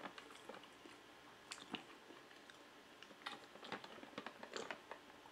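Close-up mouth sounds of eating and drinking: quiet chewing, then sips of water from a large plastic water jug. A scattering of short soft clicks and pops comes from the mouth and from the bottle being handled.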